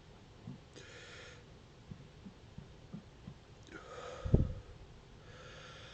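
A man gulping air down to burp it back up: three short, faint breaths, with a low gulp about four seconds in.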